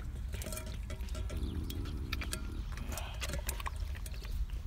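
Cheetah eating from a bowl: irregular wet chewing and crunching clicks, with the bowl knocking now and then, over a steady low rumble.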